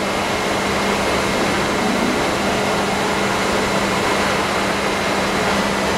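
Injection moulding machine running, a steady machine hum with a constant low tone.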